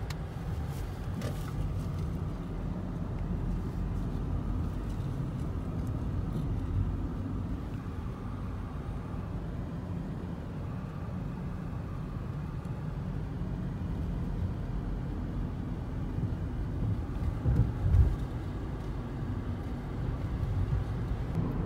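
Low, steady road and engine rumble of a moving car, heard from inside the cabin, with one brief louder thump about three quarters of the way through.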